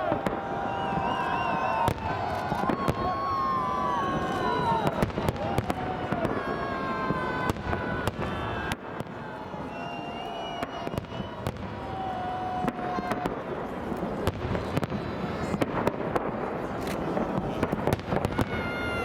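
Fireworks salute: a long run of sharp bangs and cracks from shells bursting overhead, with the voices and shouts of a watching crowd over them.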